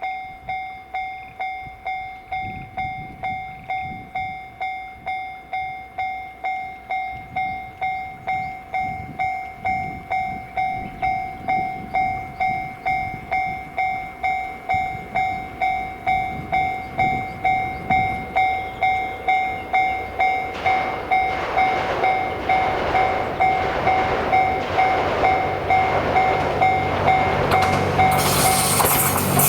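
Japanese level-crossing warning bell ringing in a steady, evenly spaced ding-ding. About two-thirds of the way in, the Series 87 Twilight Express Mizukaze diesel train is heard approaching, growing louder. Near the end it passes the crossing with a loud rush.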